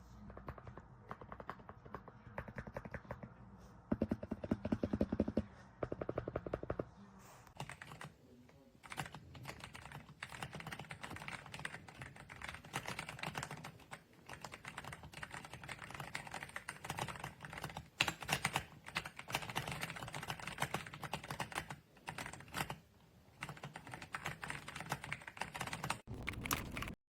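Keys of an RK Royal Kludge R75 gasket-mounted mechanical keyboard being typed on: a rapid stream of keystrokes in runs broken by short pauses, stopping abruptly near the end.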